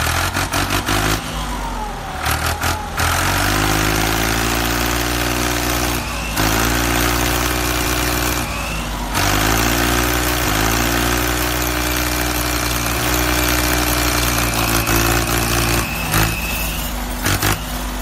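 Tractor engine sound effect for a toy tractor, a steady low diesel-like running note. It breaks off and restarts briefly a few times.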